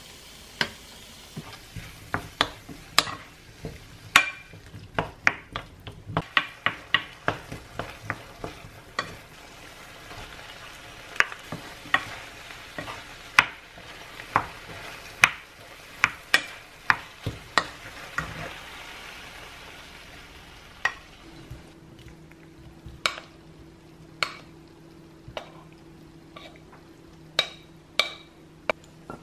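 Tomato and egg stir-fry being stirred in a frying pan: a utensil clacks against the pan over and over while the food sizzles. About two-thirds of the way through, the sizzle fades, a steady low hum comes in, and the clacks become fewer.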